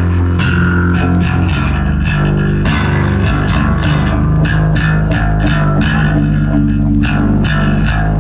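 Live instrumental rock from a trio: bass guitar holding low notes under electric guitar, with drums keeping up rapid, even cymbal strokes.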